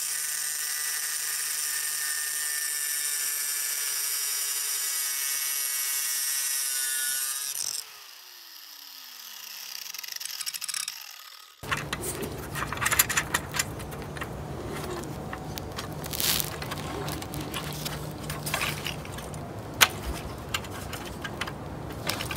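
Angle grinder with a cut-off wheel cutting through a threaded steel bolt: a steady high whine that stops about eight seconds in and winds down, falling in pitch. After that, scattered small clicks and knocks of metal parts as the ladder bracket's screws are adjusted by hand.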